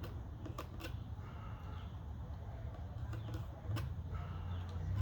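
Utility knife blade cutting and shaving wood by hand: scattered short clicks and scrapes of the blade biting and paring off slivers, over a steady low hum.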